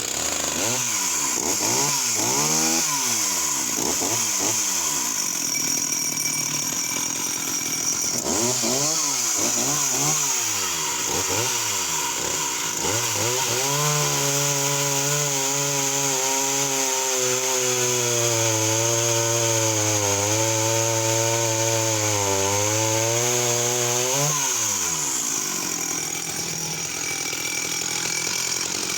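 Sachs Dolmar 111 52cc two-stroke chainsaw revved in repeated short bursts. About halfway through, it is held at high revs for about ten seconds through a cut in a 14 to 15 inch log, its note sagging a little and rising again without bogging down, then drops back to a lower running speed.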